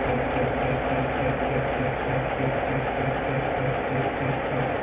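Diesel engine of a Whitcomb 65-ton diesel-electric locomotive idling, with a steady, even pulsing beat of about three beats a second.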